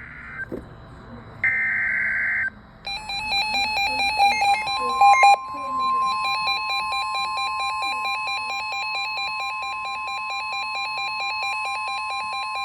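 Emergency alert tones from a NOAA Weather Radio severe thunderstorm warning. Two one-second bursts of warbling digital data tones (the SAME header) come first. From about three seconds in, a rapidly pulsing electronic alarm beep starts, joined a second or so later by the steady 1050 Hz warning alarm tone.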